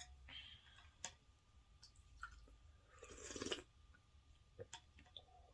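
Quiet close-up chewing of a mouthful of pho, with small wet mouth clicks and a brief louder rush of noise about three seconds in.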